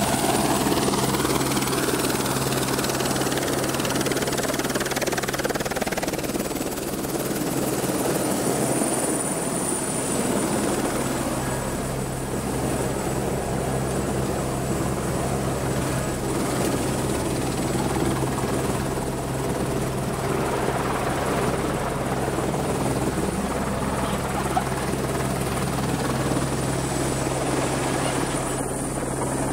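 Airbus/Eurocopter AS350 Écureuil helicopter running on the ground, rotor turning: a steady high turbine whine over the constant throb of the rotor and engine. It is heard first beside the machine and then from inside its cabin.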